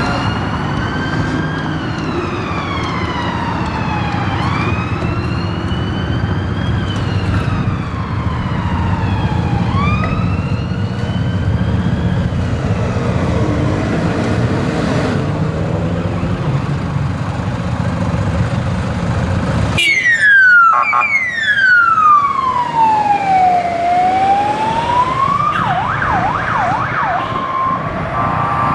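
Fire service vehicles' sirens on a blue-light turnout: a slow rising-and-falling wail over engine and traffic rumble. After an abrupt cut about two-thirds through comes a louder siren that sweeps down and back up, breaks into a rapid yelp near the end, then holds a short steady tone.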